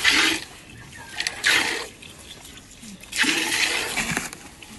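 Milk squirting from hand-milking into a metal pail already holding milk. Three hissing spurts about a second and a half apart, the last one the longest.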